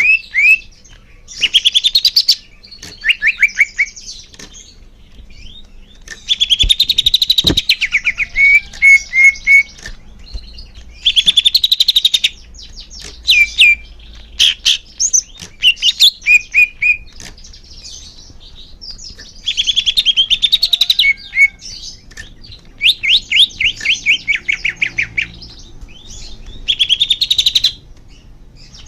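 Cucak hijau (green leafbird) singing: phrases of rapid, repeated chirping notes and short trills, each a second or two long, separated by short pauses.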